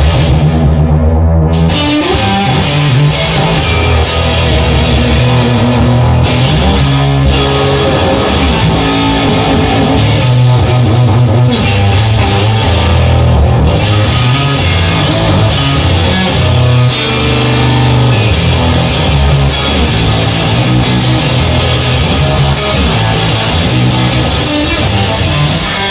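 Guitar-led rock music with bass, playing as an instrumental passage.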